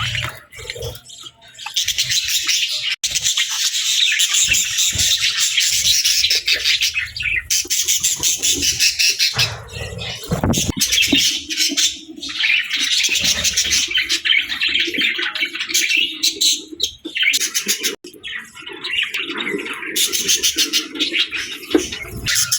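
A flock of budgerigars chattering and warbling in a dense, rapid, unbroken stream of chirps, with brief lulls.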